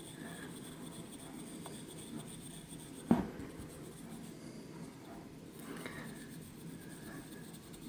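Hard pastel stick ground against a fine metal mesh sieve, a faint steady scratching as the chalk is rubbed through into powder. A single short thump about three seconds in.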